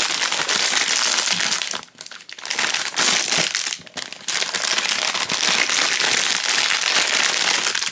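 Metallic foil blind bag crinkling and crackling loudly as hands tear it open and crumple it to work a plush toy out, with short pauses about two seconds in and near four seconds.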